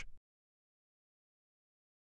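Silence: total quiet after the last syllable of a synthesized voice cuts off at the very start.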